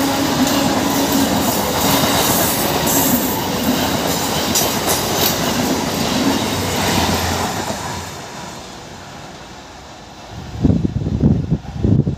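An electric multiple-unit (EMU) local train passes close by, its wheels rumbling and clattering over the rail joints, and the noise dies away after about eight seconds. Near the end come loud, irregular low buffets on the microphone.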